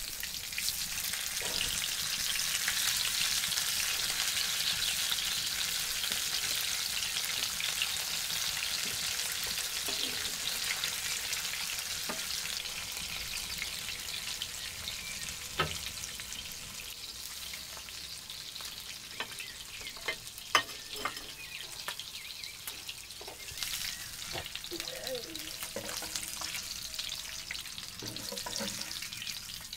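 Corn-flour-coated mackerel pieces sizzling in hot oil in a frying pan, loudest in the first several seconds and then easing off. In the second half a few sharp clicks and scrapes come from a knife against the pan as the pieces are turned.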